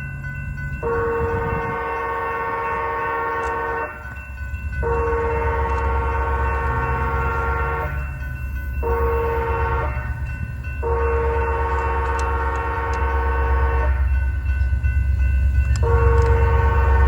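Locomotive multi-chime air horn on a CP train sounding the grade-crossing signal: two long blasts, a short one and a long one, then another long blast starting near the end. A low train rumble under it grows louder as the train draws closer.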